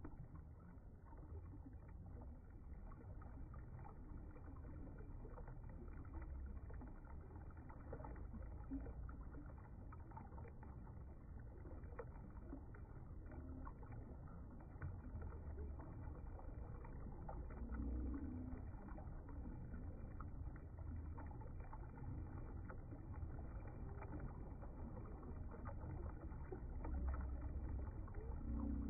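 Shallow, rocky river flowing over stones: a steady, low, muffled rushing and gurgling of water.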